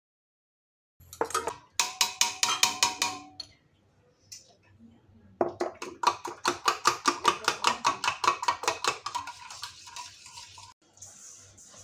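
A metal spoon clinking fast against the sides of a steel mug while stirring a drink, about five or six clinks a second. It comes in two spells: a short one about a second in, and a longer one from about five seconds in.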